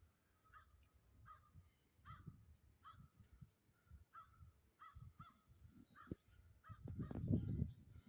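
A crow cawing over and over in short calls, about two a second. Wind buffets the microphone in low rumbling gusts, loudest near the end.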